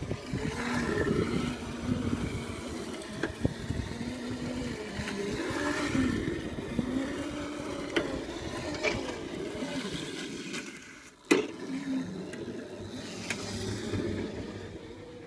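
Electric Crazy Cart drift kart driving on asphalt: its motor whine wavers up and down with speed over the rumble of small wheels rolling and scraping. There are several sharp knocks, the loudest about 11 seconds in.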